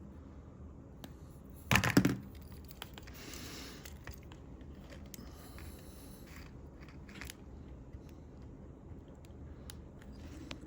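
Workbench handling noises while soldering a rotary band-switch wafer: a loud, short clatter about two seconds in, a brief soft hiss soon after, and faint scattered ticks.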